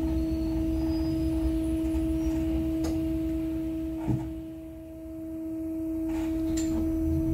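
Cabin sound of an Ursus T70116 trolleybus: its electric drive gives a steady whine held on one pitch, over a low running rumble. The rumble fades briefly about four to five seconds in, then returns, with a few light clicks.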